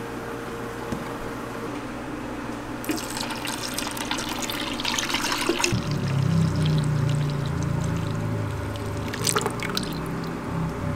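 Pumpkin juice pouring in a stream and splashing into a bowl, over a low steady hum; from about halfway through the pour takes on a deeper, wavering gurgle.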